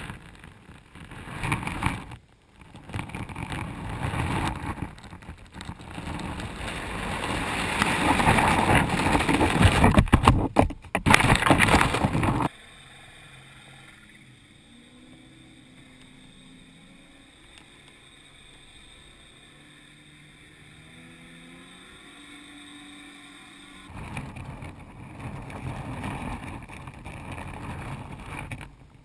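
Muffled rushing and rumbling of river water against a submerged underwater camera, swelling louder toward the middle. It cuts off abruptly to a quieter stretch with a faint low hum stepping up and down in pitch, and then the rushing returns about five seconds before the end.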